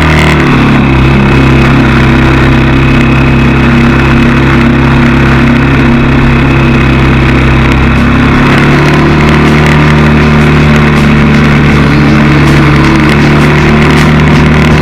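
Motorbike engine running loud and steady, close up, its pitch shifting to a new steady note about eight seconds in as the speed changes.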